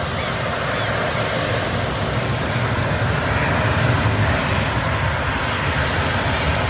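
Jet engines of a landing Boeing 737-800, its CFM56 turbofans giving a steady rushing roar that slowly grows louder.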